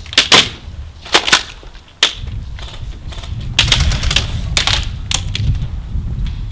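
Airsoft guns firing in close quarters: sharp snapping shots, a couple in quick pairs early on and several more scattered through the middle, over low handling and movement rumble.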